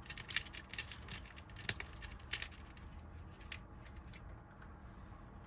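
Small metal clicks and light rattling of lock wafers being handled and fitted into a Honda door lock cylinder during rekeying. The clicks come thickest in the first three seconds or so, with one sharper click near the middle, then die away.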